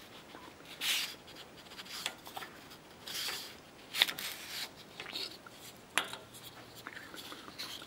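A cardboard motor mount tube with plywood centering rings being worked off a white mandrel in a lathe chuck by hand: short bursts of rubbing and scraping, with two sharp clicks about two seconds apart near the middle.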